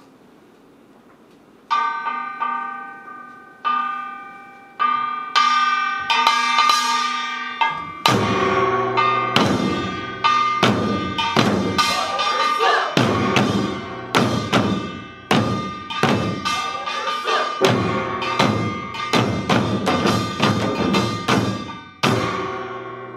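Korean samulnori percussion: a brass gong rings alone in a few slow strokes that quicken, then about eight seconds in the janggu hourglass drums come in with it in a fast, driving rhythm.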